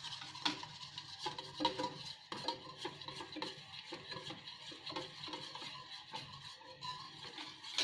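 A spoon stirring and scraping rice flour into thickening jaggery-milk syrup in a stainless steel pan, with quick, irregular strokes against the metal a few times a second. The brisk stirring keeps the flour from forming lumps as the mixture turns into a dough.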